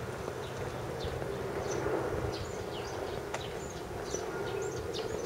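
Small birds chirping: many short, high, sweeping calls scattered irregularly over a steady low background hum of the outdoors.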